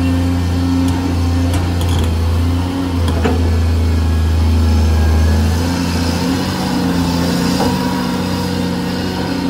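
Caterpillar 330D2 hydraulic excavator's diesel engine running steadily under digging load, a deep drone. A few short knocks come in the first three seconds. The engine note eases off slightly about six seconds in.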